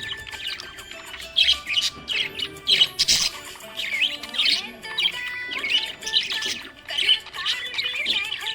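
Budgerigar chirping and warbling: a string of short, high chirps in irregular bursts, about one or two a second.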